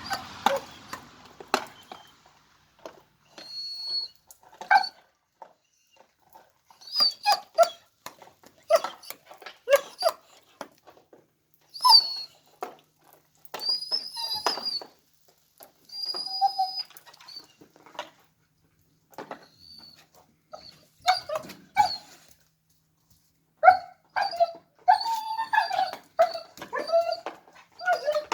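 A dog whining and giving short yips, with sharp clicks in between. The yips come thicker near the end.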